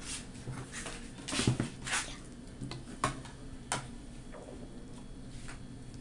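A thick milk-and-cream mixture being poured from a blender jug into a container of cubed gelatin. It gives soft splashing noises in a few short, irregular bursts, the strongest about one and a half seconds in.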